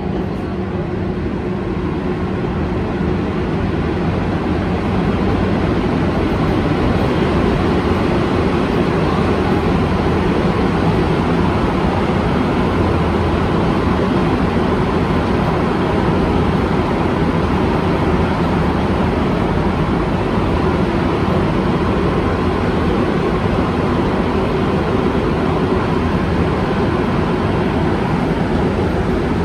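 Montreal Metro rubber-tyred train heard from inside the car, pulling away from a station and running through the tunnel: a steady rumble and hum that grows louder over the first few seconds as the train picks up speed, then holds.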